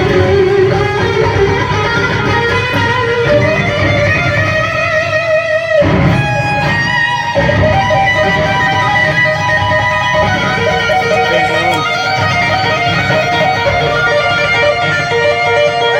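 Live rock band playing, with an electric guitar solo to the fore and notes bent in pitch. The bass and drums drop out briefly about six seconds in.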